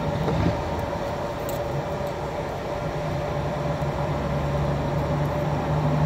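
Steady mechanical hum, like a running engine or air-conditioning fan, with a constant low drone and a steady mid-pitched tone. A few faint light clicks come from a hex key being fitted to the padlock.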